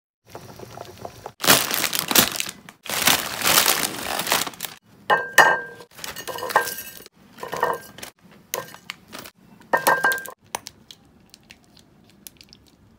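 Plastic fire-noodle packets crinkling as they are torn open, then dry instant-noodle blocks dropping onto a porcelain plate several times, each with a crunch and a short ringing clink. Faint small ticks near the end as the sauce sachet is handled.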